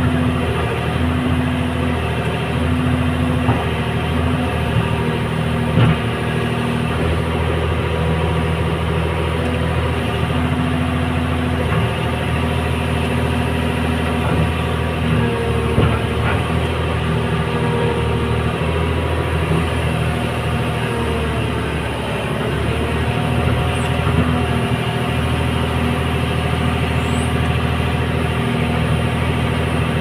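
Hyundai Robex 300LC excavator's diesel engine running steadily under load. A hydraulic whine comes and goes every few seconds as the boom and bucket work. There are a few brief knocks.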